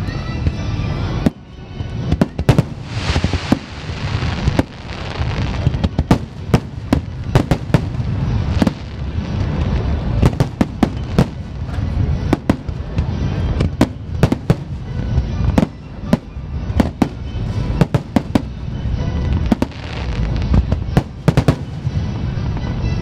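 Aerial fireworks shells launching and bursting in rapid succession: a steady run of sharp bangs, several a second, with stretches of crackling between them over a constant low rumble.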